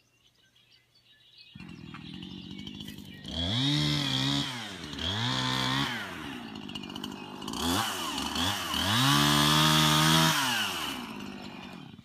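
Two-stroke chainsaw starting to run about a second and a half in, then revved up and let back down to idle several times, the longest rev about two seconds long near the end.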